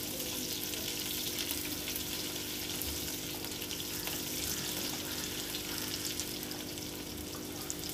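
Sliced raw onions and whole spices sizzling in hot oil in a pressure cooker, a steady crackling hiss as they are stirred with a silicone spatula.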